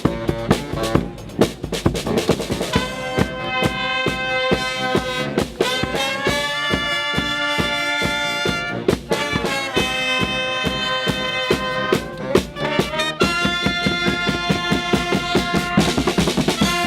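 Marching band playing: brass instruments sound held chords over steady drum beats. The brass comes in about three seconds in and pauses briefly a few times between phrases.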